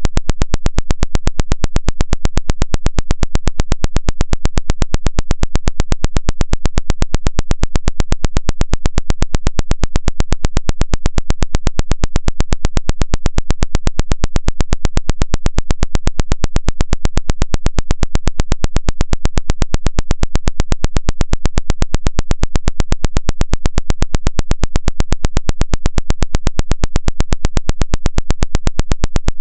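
Loud synthetic pulsing buzz: an unbroken, perfectly even train of rapid noisy pulses, several a second. It is a water-ejection 'vibration' sound, played through a phone to shake water out of its charging port.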